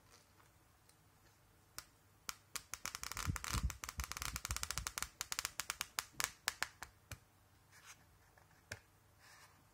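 Pages of a paper flipbook flicking off the thumb one after another, a rapid run of crisp clicks that starts about two seconds in and lasts some five seconds, then a few single page flicks near the end.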